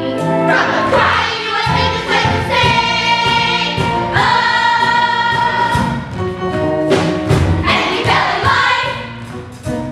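Musical theatre number: a chorus of voices singing together over a pit orchestra.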